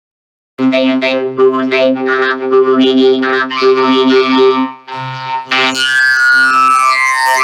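Heavily processed, synthesizer-like effect audio: buzzy sustained tones that step and bend in pitch, starting after a brief silence, turning hissy with falling glides near the end.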